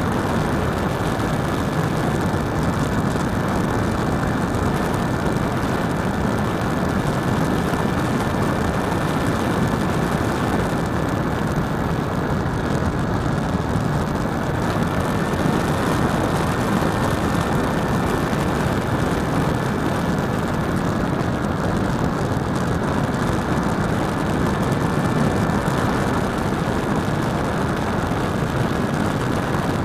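RC airplane's motor and propeller running steadily in flight, heard from a camera mounted on the tail, a steady high whine over a dense rush of air.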